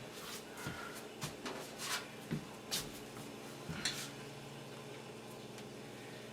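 Light clicks and knocks of dishes and serving utensils being handled, about half a dozen in the first four seconds, then calmer, over a faint steady hum.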